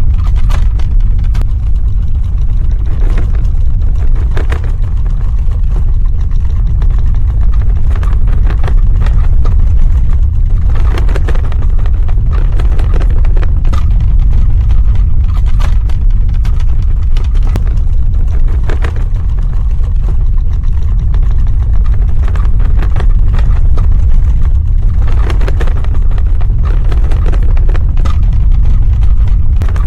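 Earthquake sound effect: a loud, steady deep rumble with scattered crackling and rattling throughout.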